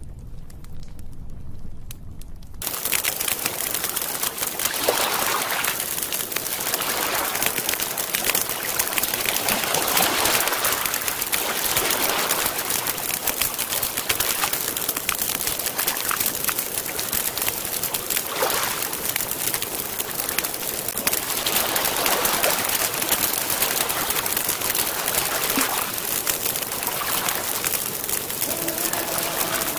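A wood campfire crackling, with water lapping softly on a stony shore and gentle swells every few seconds. The sound comes in about three seconds in, after a faint low tone.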